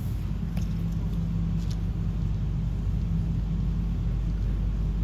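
Steady low hum of an engine running, with a few faint light ticks early on.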